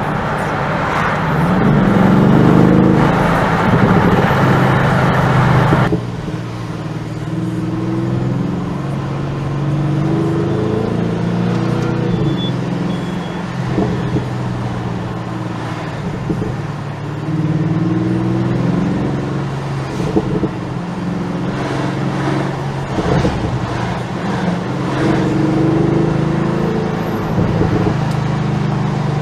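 Bentley Continental GT V8 S's 4.0-litre twin-turbo V8 with sports exhaust, heard from inside the car, accelerating in several rising pulls with drops in pitch between them. A few sharp exhaust pops come between pulls. A loud rushing noise over the first few seconds cuts off suddenly.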